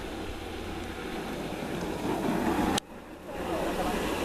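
Steady outdoor noise with a low wind rumble on the microphone. The sound breaks off abruptly about three seconds in, then resumes. There is no engine sound.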